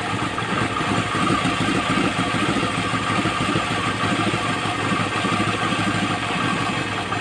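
Second-generation Toyota Camry engine idling steadily but roughly, misfiring on cylinders 2 and 3, which have low compression. The mechanic puts this down to compression leaking across into the neighbouring cylinder, bubbling into the radiator in time with the misfire.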